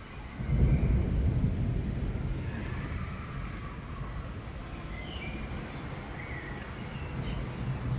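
Rolling thunder from a building thunderstorm: a low rumble that starts suddenly about half a second in and slowly dies away over several seconds.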